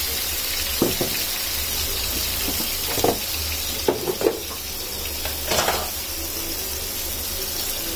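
Ground onion-tomato paste sizzling in hot oil in a nonstick frying pan, with a handful of short knocks of utensils against the pan.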